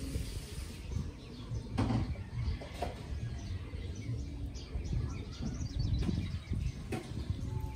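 Outdoor ambience: a steady low rumble of noise with faint bird chirps and a few light clicks.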